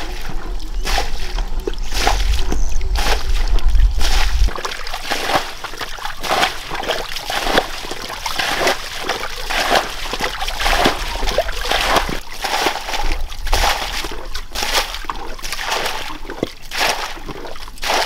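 Muddy ditch water scooped up and tipped out with a bucket, again and again: repeated splashing and sloshing as the channel is bailed out.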